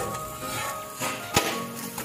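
Soft background music, with one sharp tap about one and a half seconds in: a steel spatula striking the tawa as it is worked under a besan chilla to flip it.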